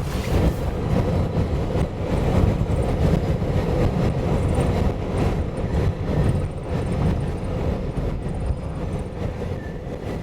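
Wind buffeting the microphone: an unsteady low rumble that rises and falls and fades near the end.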